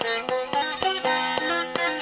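Background music: a plucked string instrument playing a quick melody of about four notes a second over a steady drone.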